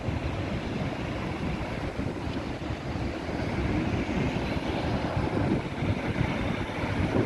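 Steady road traffic noise from cars and buses driving round a city roundabout, with wind rumbling on the microphone.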